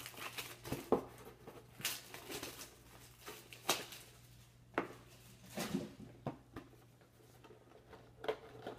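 Cardboard Panini Dominion hockey card box handled on a hard, glossy tabletop: scattered taps, light knocks and rustles as it is turned, slid and set down, with about half a dozen sharper knocks. A steady low hum runs underneath.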